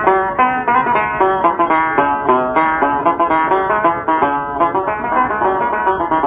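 Instrumental passage of Algerian chaabi music: plucked string instruments playing a quick melodic line of short notes, without singing.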